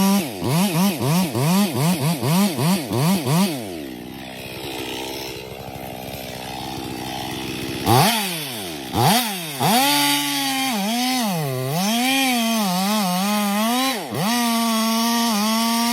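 STIHL MS 881 two-stroke chainsaw revved in quick blips, about three a second, then dropping to idle about four seconds in. It revs up sharply again about halfway through, its pitch sagging and recovering as it works under load, and holds steady at high revs near the end.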